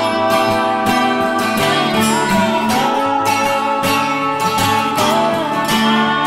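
Background music: a strummed acoustic guitar tune with a steady rhythm.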